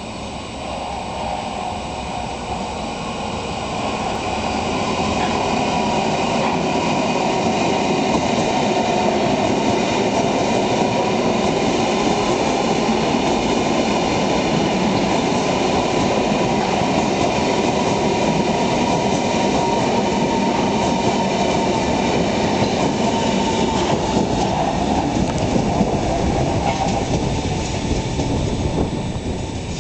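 Berlin S-Bahn class 481 electric train pulling into the station and running past close by: the rolling noise of wheels on rail builds over the first few seconds, then holds steady, with a thin high whine running through the middle.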